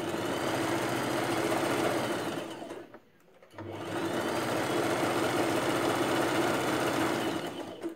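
Electric sewing machine stitching in two runs, about three seconds and then about four, with a short pause between. The first run slows down before it stops.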